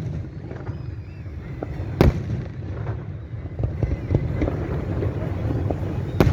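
Fireworks going off: one loud bang about two seconds in and another near the end, with scattered smaller pops between, over a steady low background rumble.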